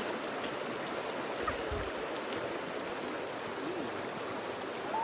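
Steady rushing of a flowing creek, with a brief dull low bump about a second and a half in.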